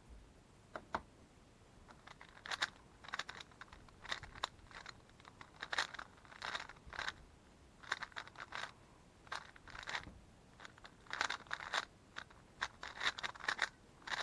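Moyu Weilong GTS3 M magnetic 3x3 speedcube being turned fast during a timed solve: rapid clacking layer turns in bursts, broken by short pauses.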